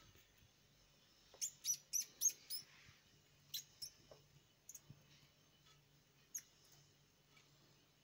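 Argentine black and white tegu eating a pinky mouse: a quick run of five short, high, sharp sounds about a second and a half in, then a few more scattered ones.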